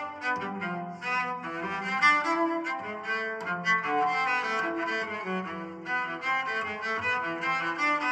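Alarm ringtone of an LG-T390K Wine 3G phone: a busy instrumental melody of many quick notes over a low bass line.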